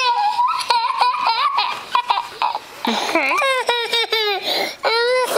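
A toddler laughing and squealing in a string of high-pitched, wavering laughs.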